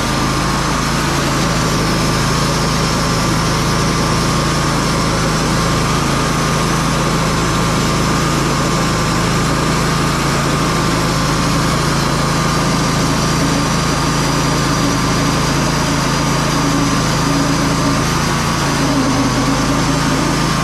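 Portable bandsaw mill's engine running steadily under load with a constant whine as the band blade cuts through a black oak log. The mill is struggling a little, the blade being no longer new.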